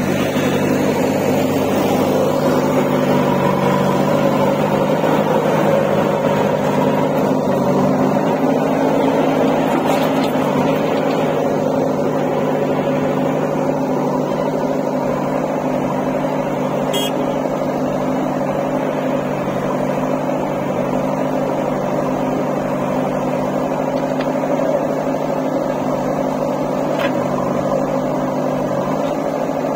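Diesel engines of a JCB 3DX backhoe loader and a John Deere 5105 tractor running steadily, with a slight change in the engine note about 8 seconds in.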